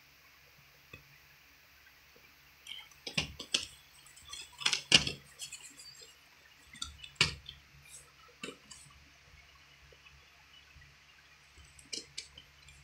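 Plastic Blu-ray cases clicking and clacking as they are handled, flipped over and set down. The clacks come in a cluster of sharp knocks starting a few seconds in, with a couple more near the end.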